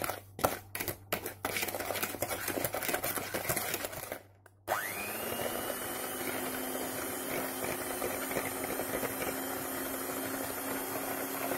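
Irregular clatter and knocking for the first few seconds. Then, after a short gap, an electric hand mixer's motor spins up with a rising whine and runs at a steady pitch as its wire beaters whip an egg yolk with sugar.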